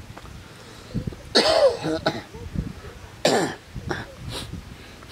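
Throaty, coughing vocal sounds: two longer ones with a wavering pitch about two seconds apart, then shorter bursts near the end.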